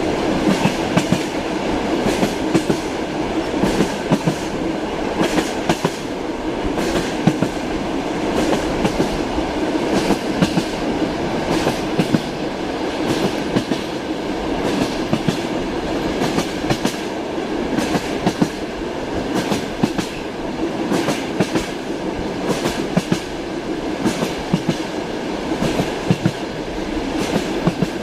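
Passenger train carriage running along the track, heard from inside the car: a steady rumble with the wheels clacking over rail joints again and again.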